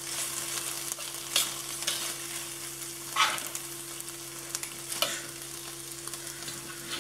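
Onions and roasted red peppers sizzling gently in a stainless steel skillet while chicken pieces are lifted from a cast-iron pot with metal tongs and dropped in. Three sharper clicks and scrapes of the tongs against the pan and pot come about every two seconds, over a steady low hum.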